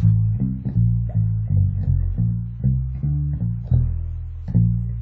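FL Custom five-string electric bass played on its own: a line of plucked low notes, about two to three a second, each note ringing on until the next.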